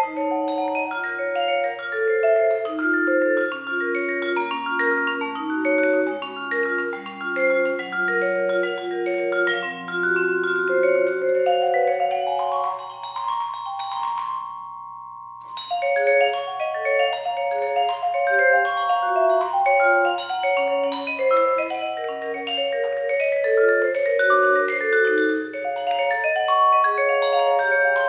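Solo vibraphone played with mallets: a flowing line of ringing, sustained notes that works its way down in pitch. About 13 seconds in, a held chord rings and fades to a short pause, and the playing resumes around 16 seconds.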